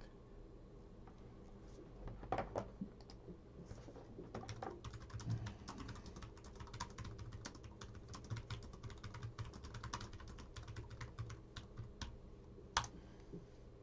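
Typing on a computer keyboard: a run of rapid key clicks, with one sharper click near the end.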